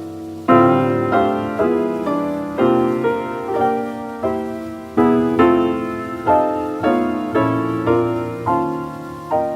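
Modern jazz piano played from a 1952 78 rpm record, moving through a run of chords, each struck and left to fade, about two a second.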